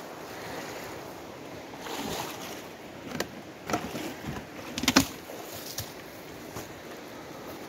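Footsteps through dry leaves and brush, with twigs and branches snapping several times between about two and five seconds in, the loudest snap near five seconds, over a steady rushing noise.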